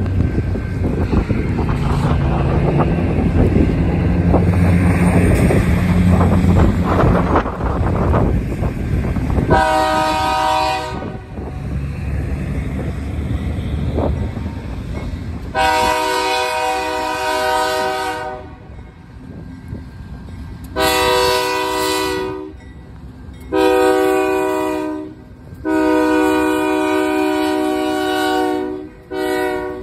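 Two BNSF GE AC4400CW diesel locomotives approach with a deep engine rumble. From about ten seconds in the lead unit sounds its multi-chime air horn in a series of long blasts with short gaps between them.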